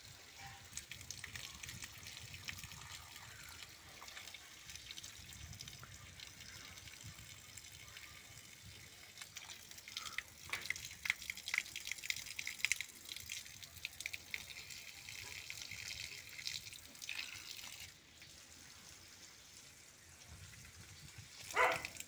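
Water jetting from a sand filter's outlet pipe during its rinse cycle and splashing onto the ground, a steady hissing splatter. It gets busier about halfway through and eases a few seconds before the end. A short sharp sound comes near the end.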